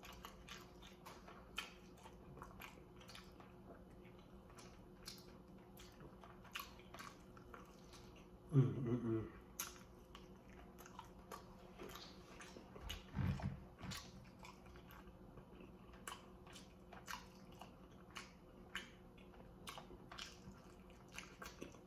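Close-up mouth sounds of a person eating baked chicken drumsticks: quiet chewing, biting and wet lip smacks as meat is pulled off the bone, with many small scattered clicks. A short voice sound from the eater comes about halfway through.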